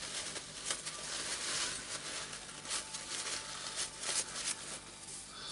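Rag rustling and rubbing as gloved hands wipe grease off a small drill gearbox part, with irregular faint scratchy crackles.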